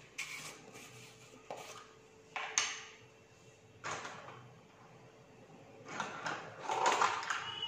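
Plastic baking powder container being handled and opened: a few sharp clicks and knocks as its lid comes off and is set down on the table, then a longer stretch of handling noise near the end.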